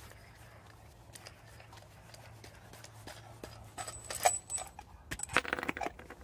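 Metal parts of a wheel bearing press kit (receiving cup, threaded rod, washers and nut) being handled and taken apart: a few sharp metallic clinks about two-thirds of the way in, one ringing briefly, then a short run of clinking and scraping near the end.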